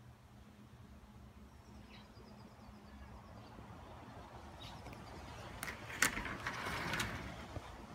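A sliding screen door being unlatched and slid open on its track: a few sharp clicks, the loudest about six seconds in, within a second and a half of rattling scrape.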